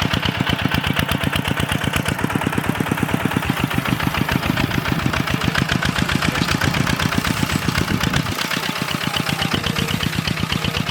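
Two-wheel walking tractor's engine running with a steady, rapid chug; the deepest part of the sound thins out a little past eight seconds in.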